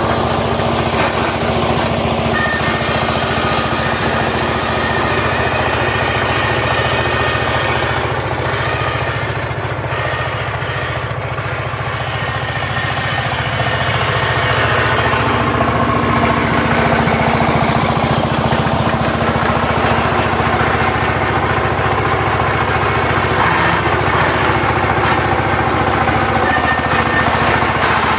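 Single-cylinder diesel engine of a two-wheel power tiller running steadily under load, a fast even chugging, while the rotary tiller works the soil. It gets somewhat louder about halfway through.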